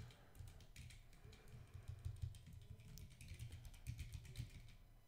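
Computer keyboard being typed on: a run of quick, irregular keystrokes, faint.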